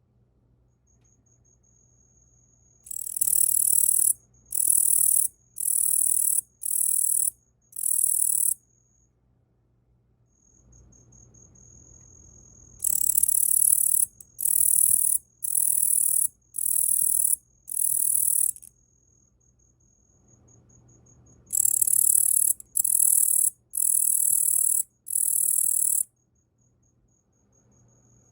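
Male Tettigonia orientalis katydid singing: high buzzing trills, each about half a second to a second long, about one a second in runs of five. Three such runs, each preceded by a faint, high, soft ticking.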